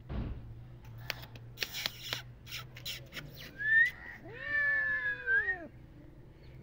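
A ginger-and-white cat gives one long, drawn-out meow about three and a half seconds in, after a few faint clicks and taps.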